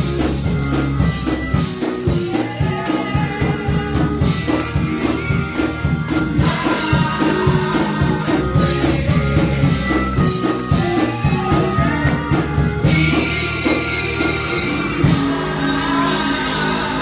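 Gospel music: singing over a band with a tambourine shaken and struck in a steady beat.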